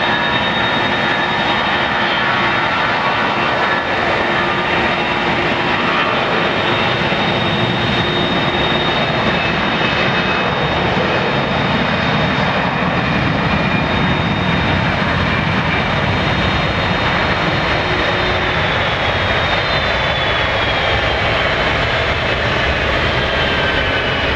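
Airbus A320 jet engines at takeoff thrust during the takeoff roll: a loud, steady roar with a high whine, the whine dropping slowly in pitch near the end as the airliner moves away down the runway.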